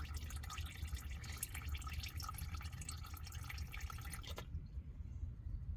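Hot engine oil pouring from the oil-pan drain hole into a catch bucket, a dense splashing patter over a low steady rumble; the pouring cuts off suddenly about four seconds in.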